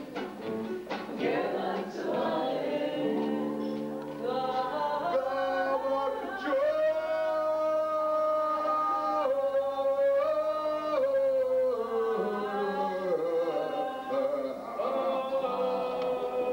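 Music: singing without clear words over instrumental accompaniment, with long held notes in the middle.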